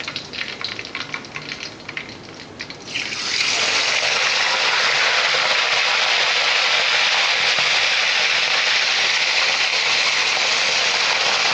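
Food crackling in hot oil in a pan. About three seconds in, a sudden loud, steady hiss starts and holds.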